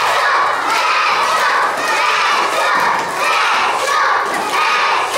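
A crowd of young children shouting and cheering, many voices at once, rising and falling in swells about once a second.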